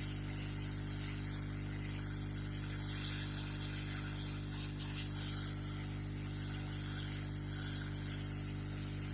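Hot-air rework station blowing at full air and full heat onto the board: a steady hiss over a low electrical hum, with a few faint ticks.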